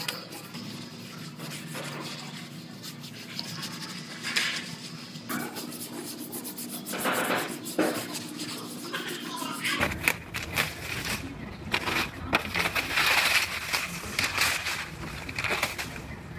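A hand rubbing and scuffing over a primed car body panel, a run of rubbing strokes that gets busier about ten seconds in.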